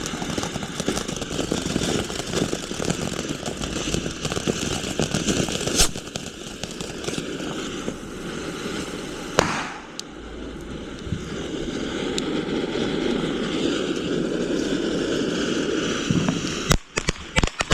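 Consumer fireworks going off close by: continuous crackling and hissing with two louder bangs, about six and nine and a half seconds in. Near the end it breaks into a rapid string of sharp pops.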